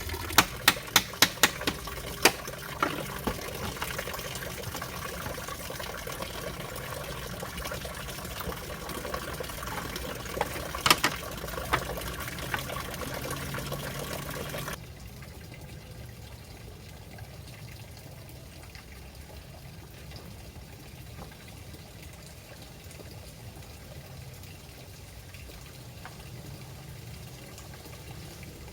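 Steady rush of running water. A quick run of sharp knocks comes in the first two seconds and a couple more about eleven seconds in. Halfway through, the sound drops suddenly to a quieter, even water noise.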